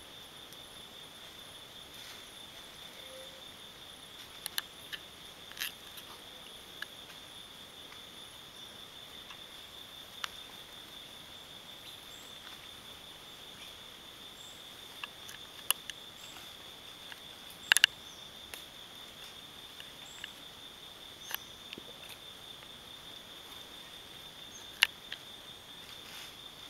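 A steady, unbroken high-pitched drone of insects in tropical forest, holding one pitch. Scattered sharp clicks break in now and then, the loudest about two-thirds of the way through.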